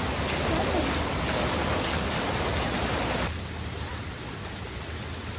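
Stream water rushing and splashing as it pours off a small wooden water wheel into a stony channel, a steady hiss. About three seconds in it cuts off suddenly to a fainter, steady rush of a small waterfall.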